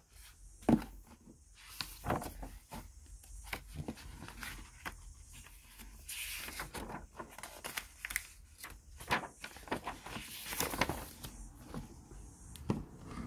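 Paper pages of a picture book being turned by hand: repeated rustling swishes and soft flaps of paper, with scattered small taps as the pages are handled.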